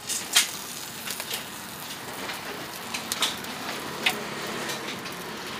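Charcoal-fired barrel chicken roaster: a steady hiss with scattered light clicks and ticks, the sharpest about half a second in and around three and four seconds in.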